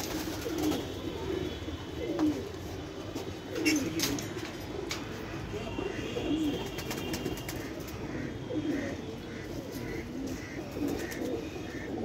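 Domestic pigeons cooing over and over, low warbling coos about half a second each, with a few sharp knocks about four seconds in.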